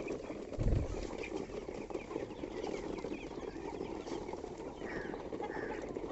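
Farmyard ambience: small birds chirping again and again over a steady background noise, with one low thump about a second in.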